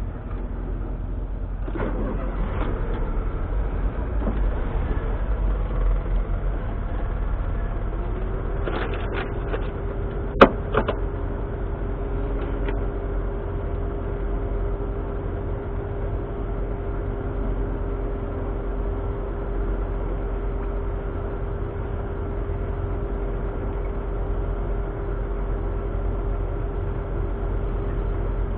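Smart Roadster's 698 cc turbocharged three-cylinder engine, remapped to 115 bhp, running as the car drives, under a steady low rumble. A steady tone sets in about eight seconds in, and a single sharp click a couple of seconds later is the loudest sound.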